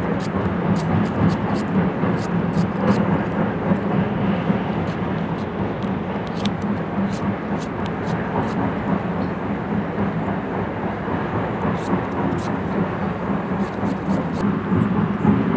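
Kitchen knife cutting raw green mango held in the hand: a run of short, crisp irregular clicks as the blade bites through the firm flesh and pieces drop into a steel plate. Under it, a steady background rumble.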